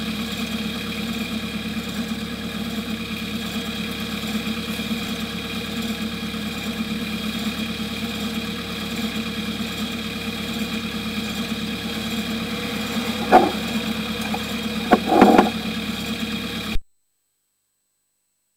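Steady machine hum made of several fixed tones. A single knock comes about three-quarters of the way through, a short cluster of louder knocks follows, and then the sound stops abruptly.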